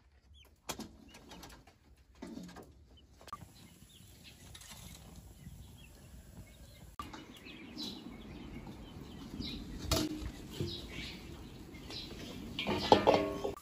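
Guinea fowl shuffling and flapping their wings in a wire cage, then a wood fire crackling under a wok, with a loud metallic clatter near the end.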